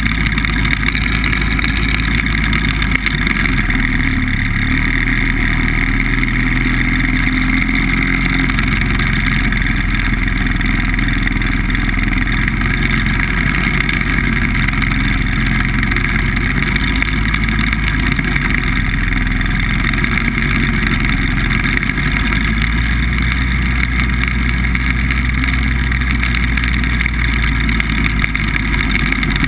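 BBV2+2 hovercraft's engine and fan running steadily under way, a constant loud drone that holds the same level throughout.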